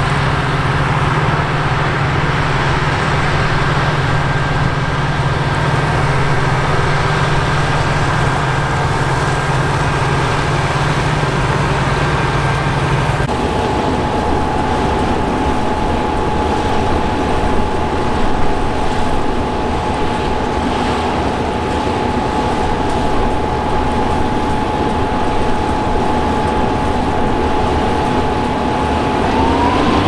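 A Claas tractor pulling a grain trailer drives across the field with its engine running steadily. After a sudden cut a little under halfway in, a Claas Lexion combine harvester runs while harvesting barley: a steady engine and threshing noise with a high whine over it, which rises in pitch near the end.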